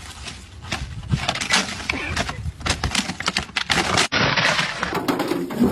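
Ice cracking and crunching in a rapid, irregular string of sharp cracks as a frozen-over door is pushed shut, breaking the ice around it.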